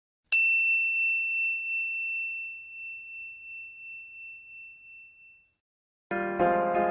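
A single high, bell-like ding struck once, ringing out and fading with a slow wobble over about five seconds. Near the end, keyboard music with piano-like chords begins.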